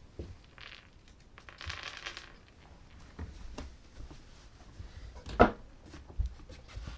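Handling noises: rustling twice in the first two seconds, then a single sharper knock about five seconds in.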